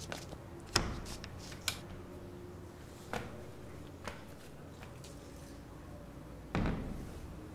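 Footsteps in sandals on a hard floor, heard as a few scattered sharp clicks, then a door shuts with a thump about a second before the end.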